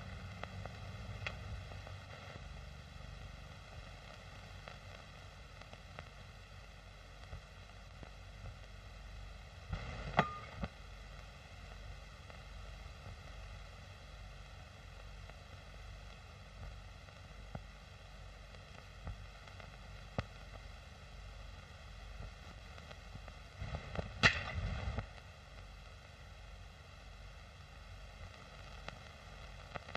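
Steady hiss of an old film soundtrack with no dialogue, broken by two short knocks, one about ten seconds in and one about twenty-four seconds in.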